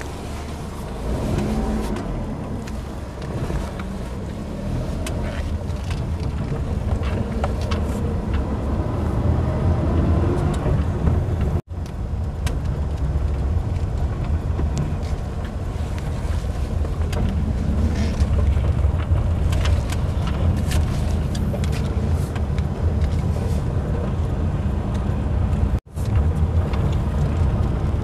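Car heard from inside the cabin while driving slowly along an unpaved lane: the engine and tyres make a steady low rumble that builds over the first ten seconds. Light knocks and rattles are scattered through it, and the sound cuts out for an instant twice.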